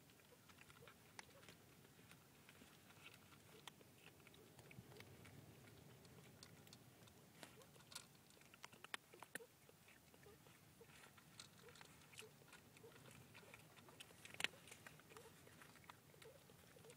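Faint, scattered wet clicks and smacks of newborn kittens suckling at their mother cat's teats.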